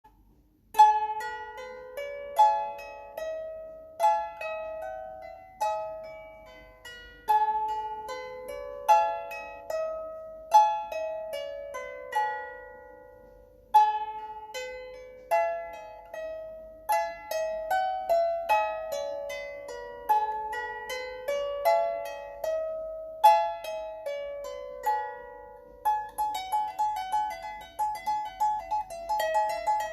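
An 18-string chromatic lyre being plucked, playing a slow melody of ringing notes that sustain and fade. The phrases each start high and step downward. Near the end the notes come quicker and closer together.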